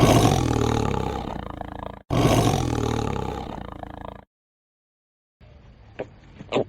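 Two long roars from a large animal, one right after the other, each falling in pitch and fading away. A quieter stretch near the end holds a short, sharp call.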